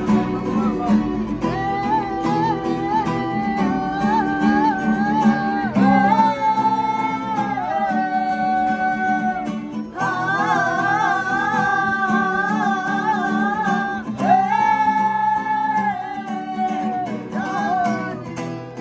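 Acoustic guitars strummed as accompaniment while a young woman sings a song, her melody wavering and sliding, with long held notes about six seconds in and again near the end.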